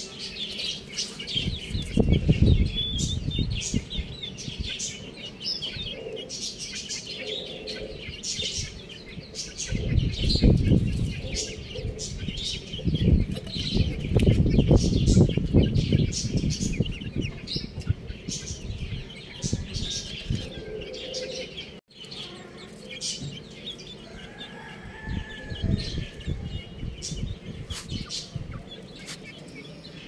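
Young chicks peeping, many short high chirps overlapping. Several loud bursts of low noise cut in, the longest a few seconds long about fourteen seconds in.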